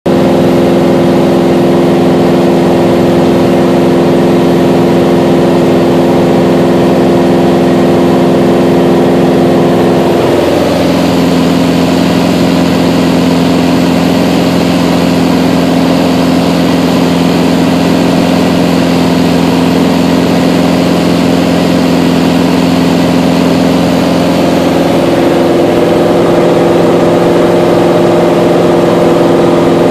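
Mooney M20J's four-cylinder Lycoming IO-360 engine and propeller in cruise, heard loud and steady inside the cabin. The engine's tone drops a little about ten seconds in and rises back near the end.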